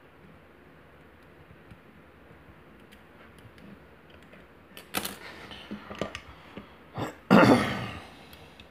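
Kwikset SmartKey lock being worked with a pick and shim. There are faint ticks at first, then a cluster of sharper metallic clicks and rattles about five seconds in. Near the end comes a single loud, short cough-like burst, the loudest sound here.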